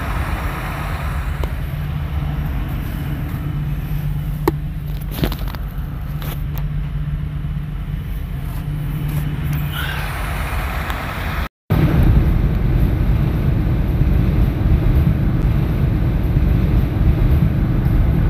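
A vehicle driving, its steady engine and road rumble heard from inside the cab, with a few light knocks about four to five seconds in. About halfway through, the sound cuts and comes back as a louder, rougher rumble.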